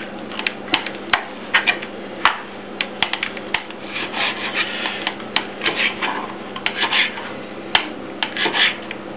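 Kitchen knife cutting a wels catfish fillet into skewer-sized chunks on a plastic cutting board: the blade taps and clicks against the board at uneven intervals, several times a second.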